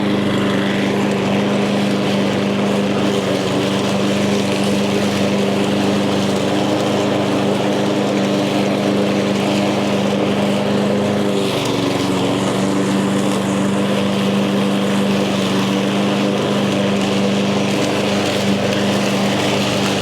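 Echo gas walk-behind lawn mower running steadily while cutting tall, thick grass. The engine note dips briefly about halfway through and then picks back up.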